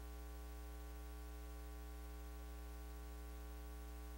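Faint steady electrical hum with an even hiss underneath, unchanging: mains hum and noise in the recording's audio chain.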